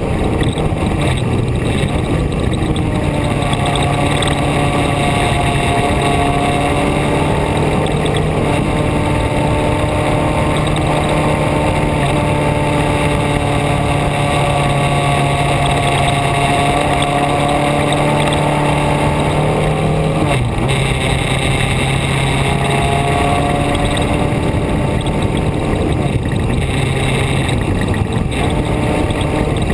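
A vehicle's engine running steadily on the move over a constant rushing noise. Its pitch steps up about two seconds in, drops about twenty seconds in, rises again a few seconds later and drops near the end.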